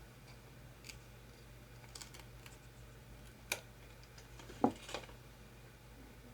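Faint, scattered clicks and taps of small false-lash packaging being handled, the loudest a sharper tap about four and a half seconds in.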